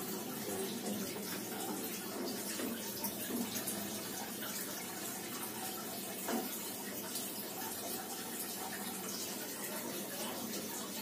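Water running steadily from a tap while something is rinsed by hand under it, with a few faint knocks.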